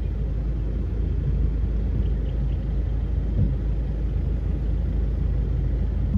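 Boat outboard motor running steadily under a low, even rumble.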